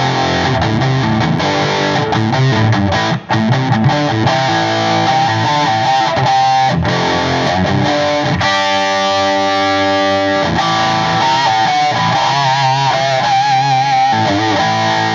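1962 Gibson Les Paul (SG-body) electric guitar played through a Cornford Roadhouse 50 amp and 4x12 cabinet: quick runs of notes, a chord held for about two seconds just past halfway, then notes with vibrato near the end.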